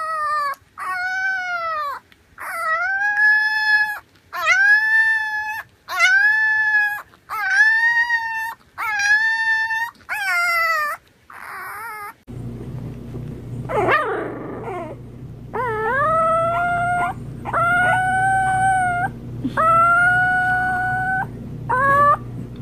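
Puppies howling in turn. A French bulldog puppy gives about eight short howls one after another, each rising and then held. After a cut about twelve seconds in, a bulldog puppy howls several times over a steady low hum.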